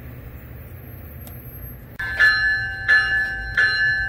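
Low steady background rumble. After a sudden cut about halfway in, it gives way to a railroad bell ringing at a steady beat, about three strikes every two seconds.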